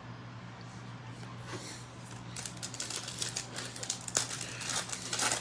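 Trading-card pack wrapper crinkling and cards being handled: a quick, irregular run of small crackles and clicks that starts about two seconds in, over a steady low hum.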